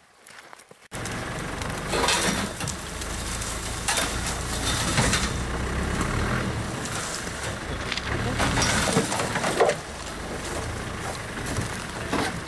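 Open safari game-viewing vehicle driving off-road through the bush, its engine running steadily with occasional knocks and rattles over rough ground. The sound starts abruptly about a second in.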